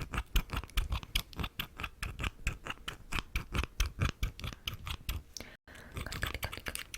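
Scissors snipping in quick succession, about five sharp snips a second.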